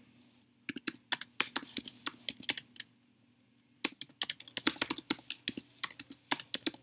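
Typing on a computer keyboard: quick runs of key clicks for about two seconds, a pause of about a second, then a longer run of typing.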